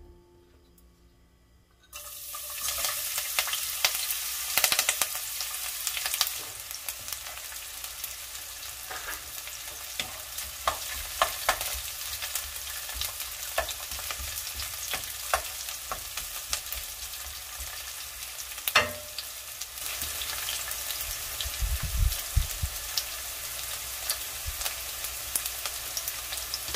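Sliced garlic and green chili sizzling in hot oil in a nonstick wok. The frying starts suddenly about two seconds in, and a wooden spatula clicks and scrapes as the pieces are stirred, with one louder knock a little past the middle.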